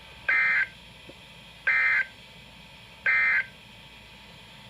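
Emergency Alert System end-of-message (EOM) data bursts on a NOAA Weather Radio broadcast: three short, loud bursts of raspy digital tone about a second apart, marking the end of the severe thunderstorm warning. Faint radio hiss lies between them.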